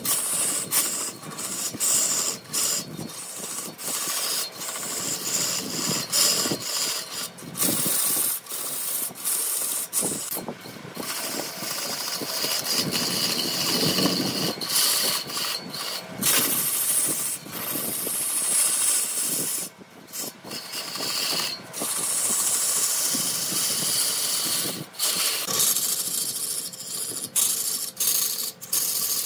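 Woodturning: a tool cutting and scraping a large redwood piece spinning on a lathe, a continuous hissing, rasping noise that breaks off and resumes many times.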